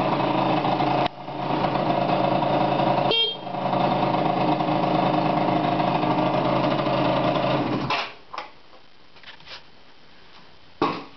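Yamaha Aerox scooter's small two-stroke engine running steadily, dipping briefly twice, then stopping about eight seconds in. A few knocks follow, the loudest near the end.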